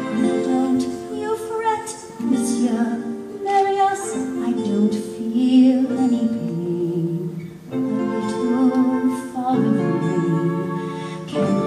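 A woman singing a slow, tender musical-theatre ballad into a microphone over instrumental accompaniment, in phrases with short breaks between them and vibrato on the held notes.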